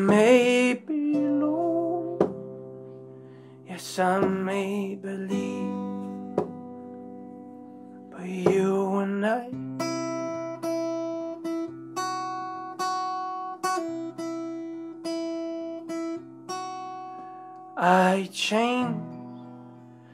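Acoustic guitar played live, with chords struck at an even, unhurried pulse and left ringing. A man's voice sings a few short phrases over it, about a second in, around four and eight seconds, and near the end.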